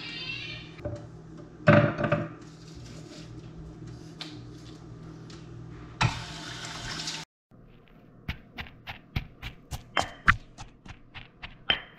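A short loud clatter about two seconds in, then a kitchen tap running briefly into a stainless sink. After that, a stone mortar and pestle pound a chilli and shallot paste in a steady beat of sharp knocks, about two or three a second.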